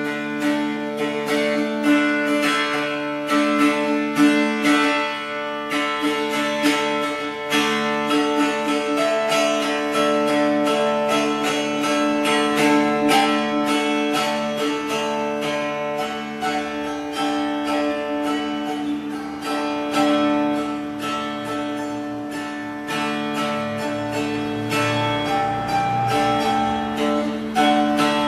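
Instrumental music on a plucked string instrument, guitar-like, with quick picked notes over a few low notes held throughout.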